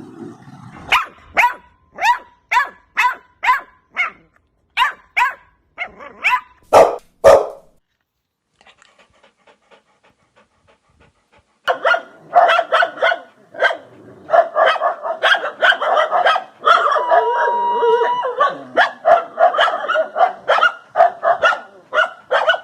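Dogs barking: one dog barks sharply about twice a second for several seconds. After a short lull with faint, quick yaps, several barks crowd together in a dense, continuous run.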